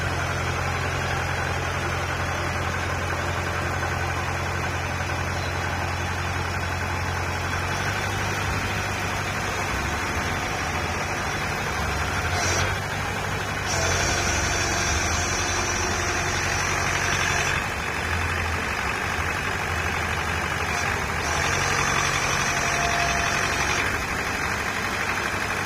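Diesel engine of a small crawler-mounted drilling rig running steadily. A thin high whine joins it twice, for a few seconds around the middle and again near the end.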